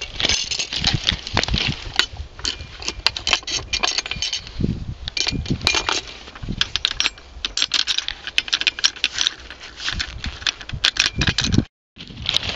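Loose steel sleeper screw and its washer rattling and clinking against a steel rail baseplate as a gloved hand wiggles it in its hole. There are many irregular sharp metallic clicks. The screw is loose in the wooden sleeper, a sign that the fastening no longer holds.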